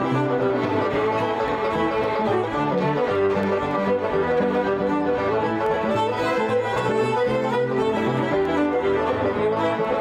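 Two fiddles, a banjo and a piano playing an Irish traditional tune together, a steady run of notes without a break.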